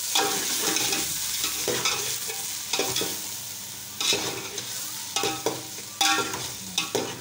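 Chicken pieces frying with browned onions in a pot, a steady sizzle, with a utensil stirring and scraping against the pot about once a second.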